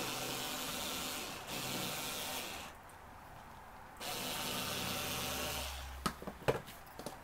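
Bosch IXO cordless screwdriver with its rotary cutter attachment, its motor whirring in three short runs as it cuts through oilcloth, stopping briefly between runs. A few light knocks follow near the end.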